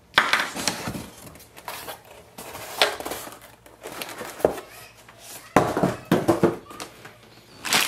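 Cardboard packing inserts being handled and pulled out of a cardboard shipping box: irregular scraping, rubbing and knocks of cardboard on cardboard, busiest a little past the middle.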